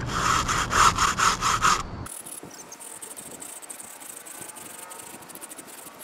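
A brush scrubbing an RV air conditioner's evaporator coil fins in up-and-down strokes, about three a second, for the first two seconds. Then the scrubbing drops away, leaving a faint high insect buzz with light ticks.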